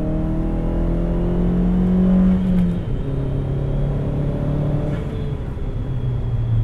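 Chevy Sonic RS's turbocharged 1.4-litre four-cylinder engine accelerating through the gears in a light pull: the engine note climbs, drops about three seconds in at an upshift, and climbs again before another drop near the end.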